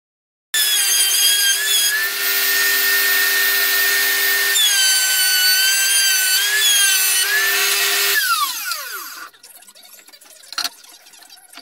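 Table saw motor running with a high whine while the blade cuts wood fed on a crosscut sled, its pitch dipping under load during the cut. About eight seconds in it is switched off and winds down with a falling whine, followed by a single light knock.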